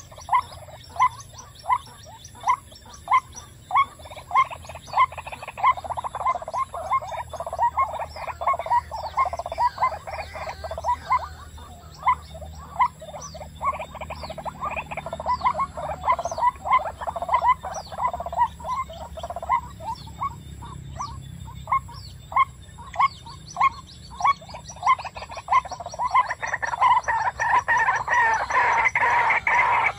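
White-breasted waterhen calling in a steady, monotonous run of short croaking notes, about one and a half a second. From about 26 seconds in it swells into a louder, denser stretch of calling.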